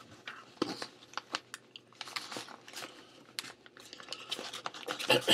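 Paper wrapping crinkling and rustling in the hands as a small package is unwrapped, with irregular crackles and a few tears.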